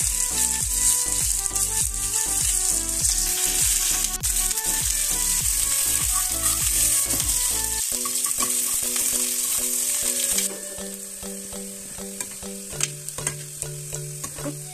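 Sliced onions, cumin seeds and chillies frying in hot oil in an aluminium pan, being browned for a kadhi tempering: a loud, steady sizzle that drops to a softer one about ten seconds in. A steel spoon stirring the pan makes clicks and scrapes against the metal, more noticeable in the second half.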